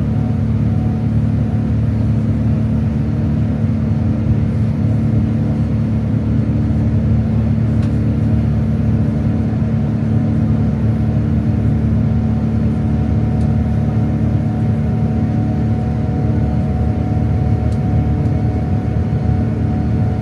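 Boeing 787-9 airliner cabin noise: a steady low rumble with a constant hum underneath, unchanging throughout.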